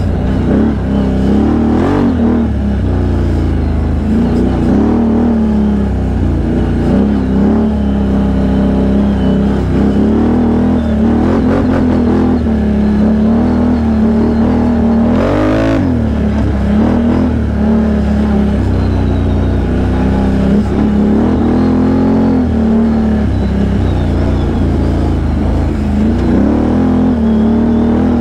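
Can-Am Outlander XMR 1000 ATV's V-twin engine running as it is ridden, its pitch rising and falling again and again with the throttle. There is a brief noisy rush about halfway through.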